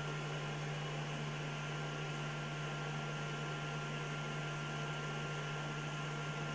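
Steady low electrical hum with a faint even hiss, unchanging throughout and with no other sounds.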